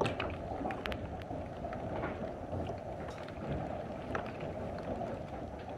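Small hail pellets falling thickly and striking the ground: a steady rush with scattered sharp ticks of single hailstones.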